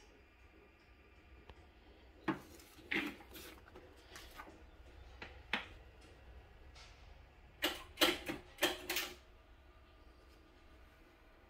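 Light plastic knocks and clunks from the hinged clear-plastic dust cover of a Sanyo TP-1005 turntable being lifted and handled: single knocks about two, three and five and a half seconds in, then a quick cluster of clicks around eight seconds in.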